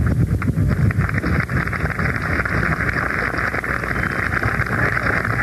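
Audience applauding, a dense steady patter of many hands clapping, with wind noise on the microphone underneath.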